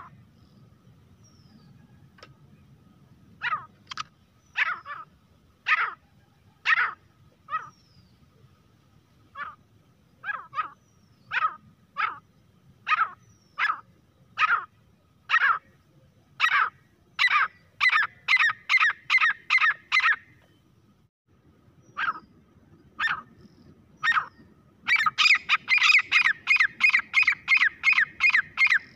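Grey francolin calling: a series of short, sharp, high-pitched notes, spaced out at first and quickening into rapid runs, then a fast unbroken run of about four calls a second near the end.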